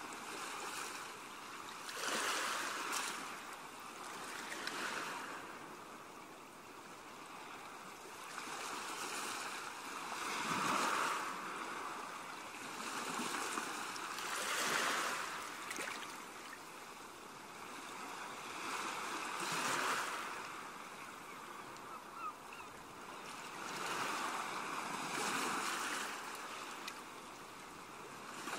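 Ocean surf: waves washing in and drawing back, the rush swelling and fading every few seconds.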